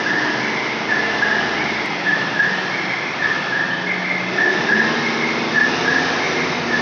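Large forklift running as it manoeuvres, a steady engine drone with a low hum underneath. Short high-pitched squeaks repeat irregularly over it, several times a second.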